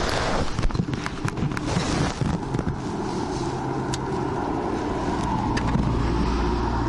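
A vehicle engine running at a steady idle, growing slightly louder toward the end. It follows about two seconds of scattered clicks and crackling.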